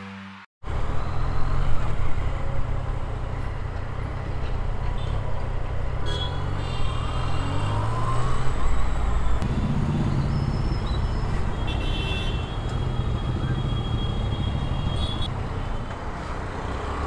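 Yamaha MT-09's three-cylinder engine running at low speed in city traffic, with wind and traffic noise around it. Vehicle horns sound twice, briefly about six seconds in and for about three seconds around twelve seconds in.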